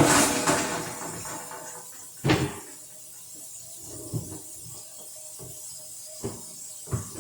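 Handling noise inside a refrigerator as a shelf is fitted back in: a rushing noise that fades over the first couple of seconds, one sharp knock about two seconds in, then lighter scattered knocks.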